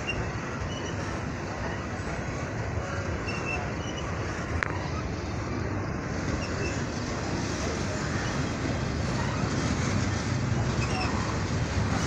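Double-stack intermodal container freight train rolling past: a steady noise of its well cars' wheels on the rails, growing a little louder in the second half.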